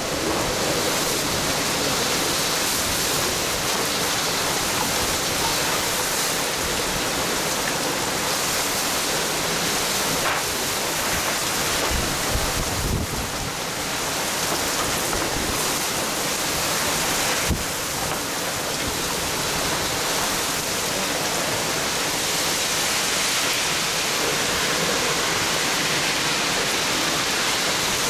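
Typhoon-force wind and driving rain: a loud, steady rushing hiss, with a few sharp knocks around the middle.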